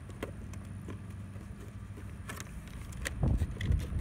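Low, uneven rumble of wind buffeting the microphone, growing louder about three seconds in, with a few light clicks of handling.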